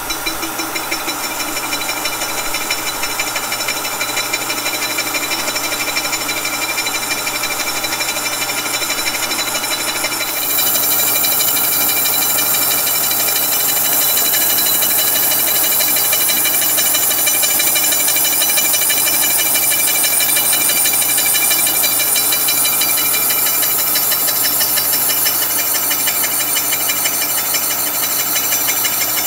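Kearney & Trecker horizontal milling machine running a slitting-saw blade through an aluminum water neck: a steady mechanical whir with a ringing saw tone. About ten seconds in it gets louder and takes on a strong high hiss.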